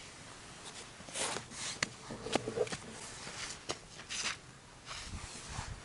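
Plastic toy excavator bucket scraping and scooping sand, with sand spilling into a plastic toy dump truck's bed. Several short scrapes and a few sharp plastic clicks.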